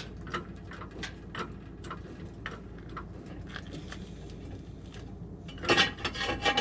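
Irregular light metallic clicks from hand tools and parts being worked on a truck's front hub. Near the end comes a louder cluster of metal clinks with a brief ring.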